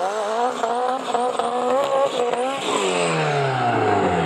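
VW Beetle drag cars' air-cooled flat-four engines running, their note wavering up and down and then falling steadily in pitch over the last second and a half.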